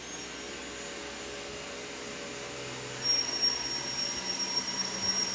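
Xiaomi 1C robot vacuum running with a steady whir. About three seconds in, a high, steady whistle sets in on top of it: the whistling left drive wheel.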